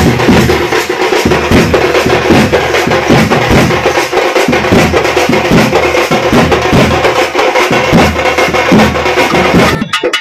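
Loud, fast percussion-driven music with dense drumming. It breaks off briefly and changes just before the end.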